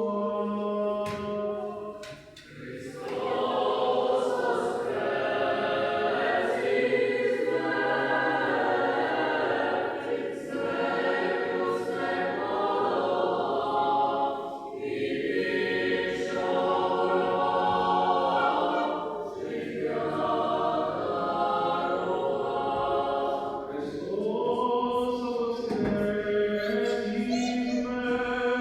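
Ukrainian church choir singing liturgical chant a cappella, in long sustained phrases with short breaks between them and a held low note under the voices at the start and near the end.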